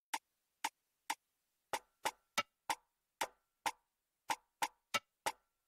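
Short, sharp percussion clicks, thirteen of them, tapping out an uneven syncopated rhythm with nothing else playing: the sparse percussion intro of a song.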